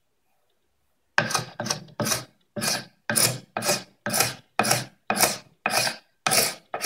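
Hand glue scraper pushed in quick strokes across the face of a glued-up wooden panel, shaving off dried glue: about two scraping strokes a second, starting a little over a second in.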